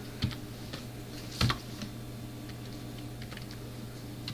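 Computer keyboard keys struck a few at a time as a command line is edited: scattered separate clicks, the loudest about a second and a half in, over a faint steady low hum.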